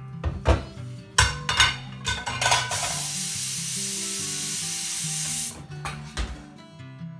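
Glass bowl and dishes clattering at a kitchen sink, then a steady rush of running water that cuts off suddenly about two-thirds of the way through, over soft guitar background music.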